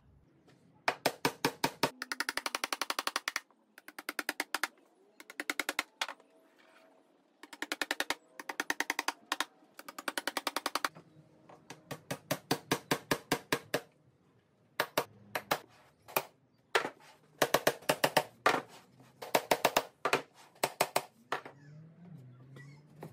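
Claw hammer driving small nails into a pine board: runs of quick, sharp, evenly spaced taps in bursts of one to three seconds, with short pauses between.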